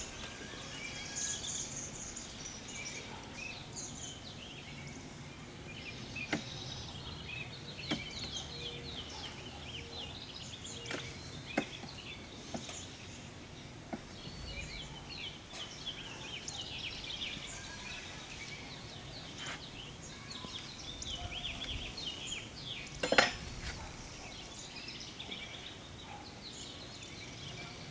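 Scattered clicks and knocks of wooden hive frames and a metal hive tool being handled during a beehive inspection, the loudest one about 23 seconds in. Behind them, a steady scatter of small birds chirping.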